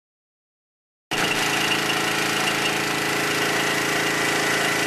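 Silence for about a second, then an electrofishing boat's engine running at a steady, unchanging hum.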